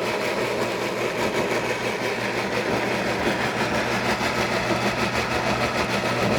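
Breville Bluicer blender motor running steadily while blending a jar-load of thick crunchy peanut butter, a steady hum with a fast, even flutter.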